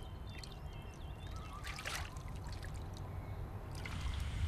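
A wooden boat paddle dipping into still water: soft splashes, with water trickling and dripping off the blade, one stroke about every two seconds.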